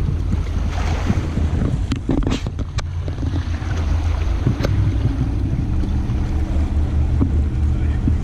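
Wind buffeting the microphone as a loud low rumble, with a steady low hum beneath it. A few sharp clicks come between two and three seconds in and again near five seconds.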